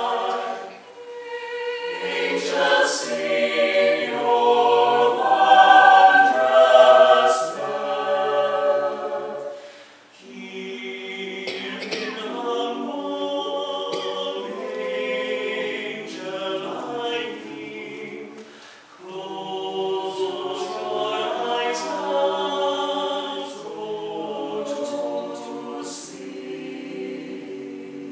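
Small mixed choir singing a cappella in sustained phrases. The singing swells loudest about six to seven seconds in, with brief breaths between phrases about a second in, ten seconds in and eighteen seconds in.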